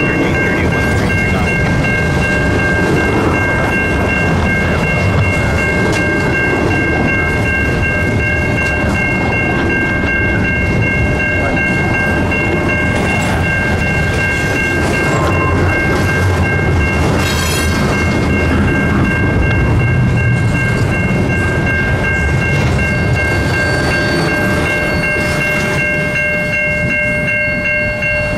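Double-stack container freight cars rolling past a level crossing: a steady rumble and clatter of steel wheels on the rails. The crossing's warning bell rings steadily over it throughout.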